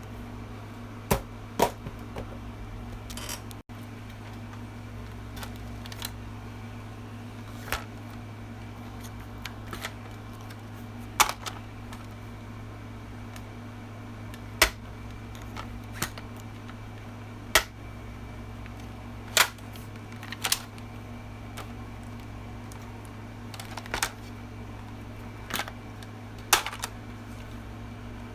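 Sharp plastic clicks and clacks of a toy gun being handled and reloaded, about a dozen spread unevenly one to three seconds apart, over a steady low hum.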